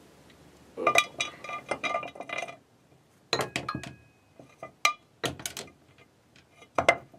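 Plastic toothbrushes clattering and clinking against a ceramic toothbrush holder as they are pulled out and dropped back in, in several quick bursts of clicks with a short ring after some of them.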